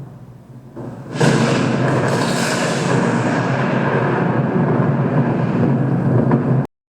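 Thunder sound effect from a picoSTORM lightning-and-thunder controller: a fading low rumble, then about a second in a sudden loud thunderclap that rumbles on steadily and cuts off abruptly near the end.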